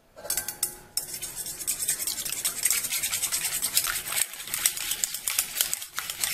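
Wire coil whisk beating eggs and oil in a stainless steel bowl: fast, steady metallic scraping and clinking strokes of the whisk against the bowl, starting just after a brief pause.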